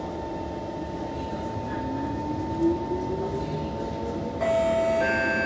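Kawasaki C151 electric multiple unit pulling away from a station, heard from inside the car: rail and running noise under a steady tone, with the traction motor whine rising in pitch as the train accelerates. About four and a half seconds in, the sound jumps to a louder, steadier set of tones.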